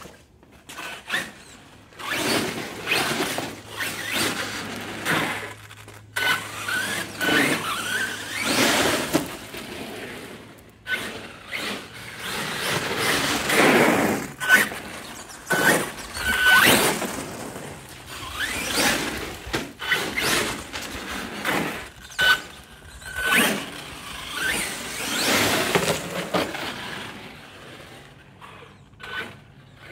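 HPI Savage XL Flux electric RC monster truck driven in about a dozen short bursts of throttle, with brief high squeals among them. It is being run to test its newly replaced front ring and pinion.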